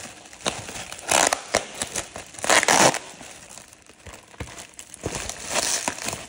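Thin plastic bag and bubble wrap crinkling and rustling as a parcel is unwrapped by hand. It comes in bursts, loudest about a second in and again around the middle, with a smaller burst near the end.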